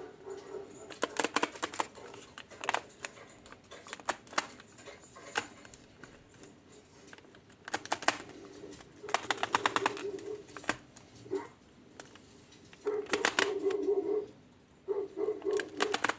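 Hard plastic clicks of a camera flash being handled, its head swiveled and tilted, in several quick bursts of rapid clicking. A low hum comes and goes between and under them.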